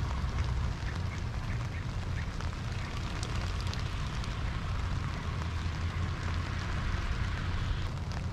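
Steady rain hiss with scattered small ticks of drops, over a heavy low rumble of wind buffeting the microphone.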